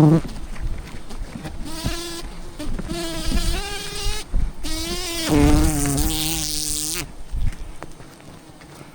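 Wild honey bees buzzing close by, a loud drone that wavers in pitch as the bees fly past, then dies down about seven seconds in.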